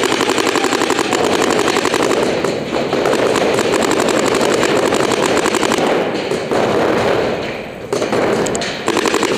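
Paintball markers firing fast strings of shots, about a dozen a second, with brief pauses between strings.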